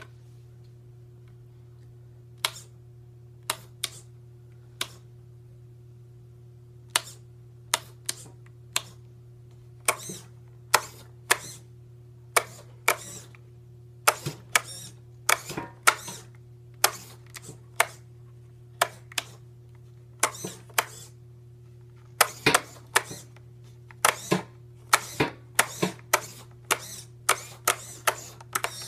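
Sharp clicks and clacks as the switches are hit on a radio transmitter working the suspension of a radio-controlled 1957 Chevrolet Bel Air lowrider model. They are sparse for the first few seconds, then come quickly, often in pairs and quick clusters, over a steady low hum.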